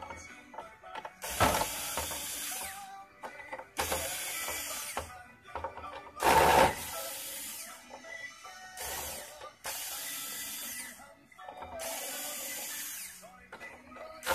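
A hand-held powered screwdriver runs in several short bursts, each about a second long, about six in all. It is backing out the screws that hold the mask on an LED display module.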